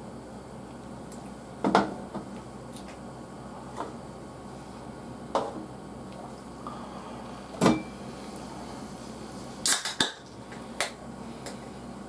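A series of short, sharp knocks and clinks of a drinking glass and beer cans being set down and moved on a tabletop, one near the middle with a brief ring and a quick cluster near the end, over a steady hiss.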